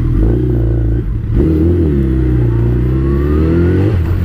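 Suzuki Hayabusa's inline-four engine pulling away at low speed, the revs rising and falling with the throttle. The revs climb toward the end and fall off sharply just before four seconds in.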